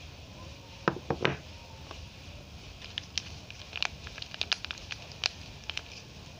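Three sharp knocks about a second in, then the paper wrapper of a bar of soap crinkling and crackling with small irregular clicks as it is handled in the fingers.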